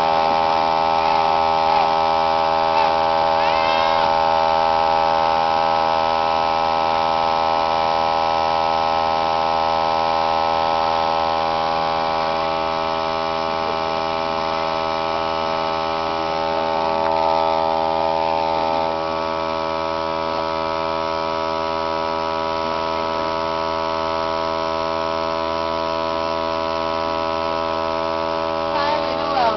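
Small electric air compressor running with a steady, many-toned hum, pumping air through a coiled hose into a homemade PVC air cannon; it drops a little in level about two-thirds of the way through.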